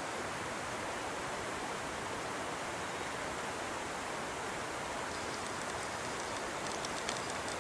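Steady, even rush of a creek running, with a few faint light clicks near the end.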